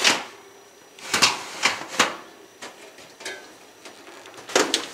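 Metal oven rack being pulled out on its runners with a towel, giving several separate sharp clicks and clinks of the wire rack and the aluminum pans on it.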